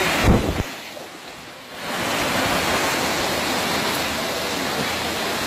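Steady rushing noise of heavy rain and floodwater flowing through a street. There is a thump just after the start, then the noise drops away for about a second before it returns.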